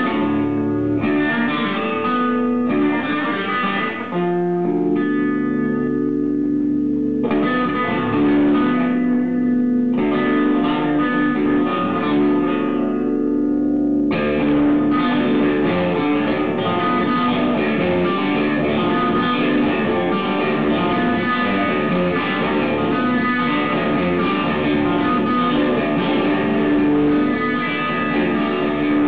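Guitar music: plucked guitar with long notes left ringing in the first half, turning to a fuller, busier passage about halfway through.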